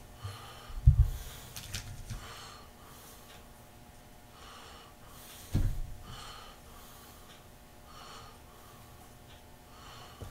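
A person breathing heavily through the nose, one breath about every second and a half. Two dull thumps break in, the louder about a second in and another about halfway through.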